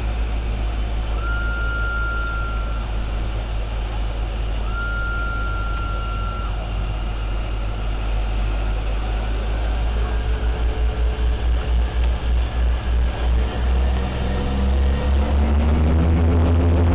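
The twin Pratt & Whitney PT6A turboprop engines of a DHC-6 Twin Otter, heard from the cockpit: a steady drone with a high turbine whine. Two short electronic beeps sound a few seconds in. From about ten seconds in, the two propellers beat against each other in a pulsing rhythm, and near the end the engines grow louder as power comes up for takeoff.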